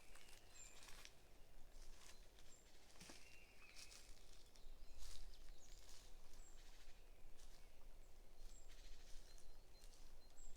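Faint forest ambience: birds giving short, scattered chirps and high peeps over a low steady rumble, with soft crackles here and there.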